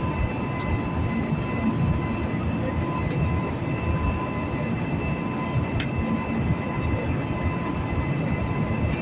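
Steady cabin noise of a jet airliner in cruise: a broad, low rush of airflow and engines, with faint steady high tones above it.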